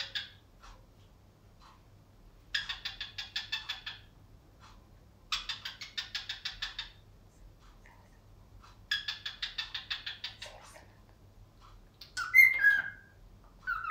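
A cockatiel chattering in three bursts of rapid ticking notes, each about a second and a half long, then giving short whistled notes near the end.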